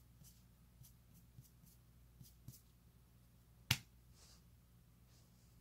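Faint, soft scratching strokes of fingers rubbing an Italian greyhound's short-haired belly, about two or three a second, with one sharp click about three and a half seconds in that is the loudest sound.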